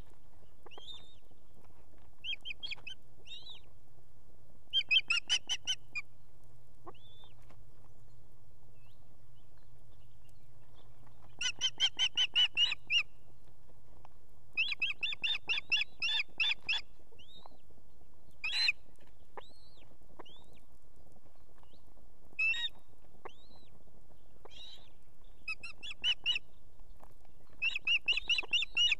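Ospreys calling at the nest: short runs of rapid, high, whistled chirps, many notes a second, repeated every few seconds, some runs louder and longer than others.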